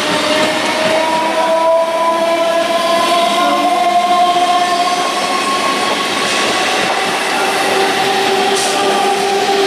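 Electric multiple unit local train passing close by at speed: a loud, steady rush of wheels on rails, with a sustained whine that drifts slowly in pitch and drops lower near the end.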